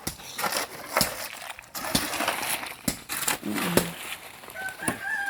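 Shovels scraping and knocking through cement, sand and gravel as concrete is mixed by hand, with irregular sharp knocks over a gritty scraping.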